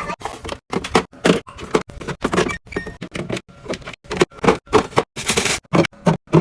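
Rapid run of clicks and knocks as food containers, jars and bottles are handled, set down and stacked in a fridge, about three or four a second, with a brief rustle of packaging about five seconds in.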